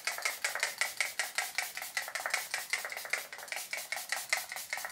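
Facial mist pump spray bottle being pumped rapidly over the face: a fast run of short hissing spurts, about five a second, going on without a break.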